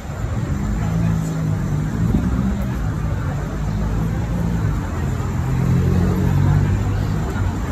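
Road traffic on a busy city avenue: a steady low engine hum from passing motor vehicles over general street noise.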